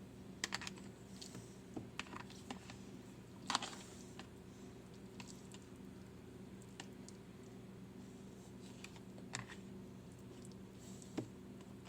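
Scattered light clicks and taps, the loudest about three and a half seconds in, over a low steady hum.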